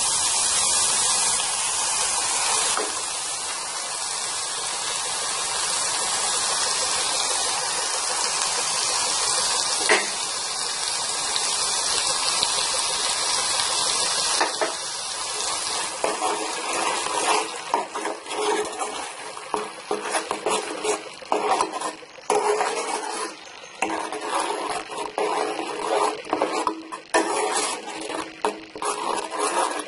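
Ground onion, garlic and green-chili paste sizzling steadily in a hot pan. About halfway through a steel ladle starts stirring and scraping through the added tomato purée in quick, irregular strokes against the pan.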